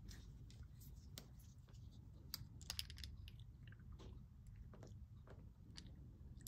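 Faint small clicks and taps of glass ink bottles and a screw-on dropper cap being handled and opened, with a quick cluster of sharper clicks a little over two seconds in.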